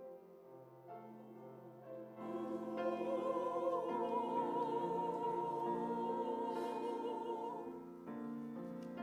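Church choir singing with piano accompaniment. The voices come in about two seconds in and hold long notes with vibrato. Near the end the piano carries on more softly.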